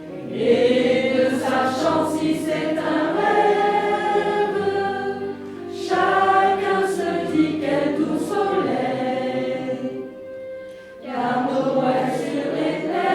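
A choir singing a Christmas song in phrases, with short breaks between phrases about five seconds in and again about ten seconds in.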